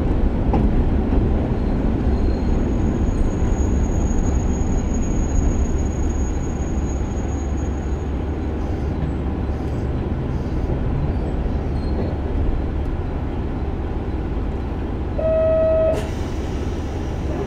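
Onboard running sound of a KiHa 147 diesel railcar: steady engine and wheel-on-rail rumble. About a second before the end a short steady tone sounds.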